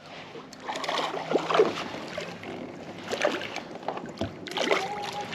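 Irregular water splashing and small knocks at a kayak while a crappie is reeled in and brought alongside.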